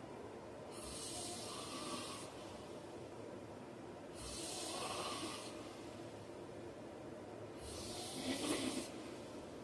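A heavyset man snoring in his sleep: three slow, noisy breaths about three and a half seconds apart, the third the loudest.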